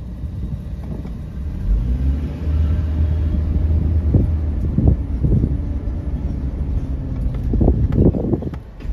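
Truck engine running with a low, steady rumble that grows louder about two seconds in, with a few brief louder surges around the middle and again near the end.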